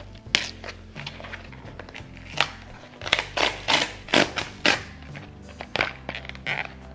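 Cardboard mailer being torn open along its tear strip: a run of sharp ripping and crackling noises, busiest in the middle, over soft background music.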